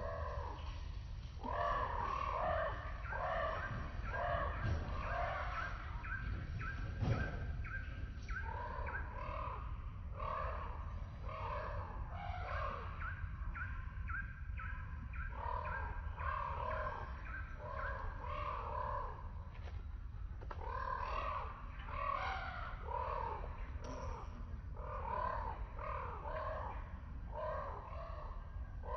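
Several birds calling at once, with short harsh calls repeated over and over and overlapping. Twice a rapid run of short, higher, evenly spaced notes joins in, over a steady low rumble.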